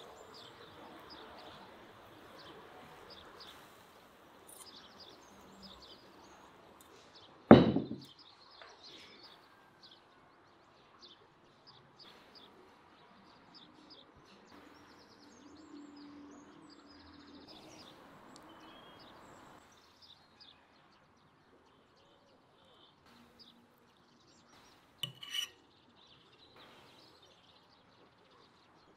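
Faint outdoor background with scattered bird chirps, broken by one sharp knock about a quarter of the way in. Near the end, crockery clinks twice with a short ring.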